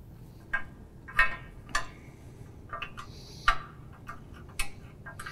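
Irregular light clicks and taps, about eight over a few seconds, as a bolt is worked through a latch lever, a spring and the holes of a cart drawbar.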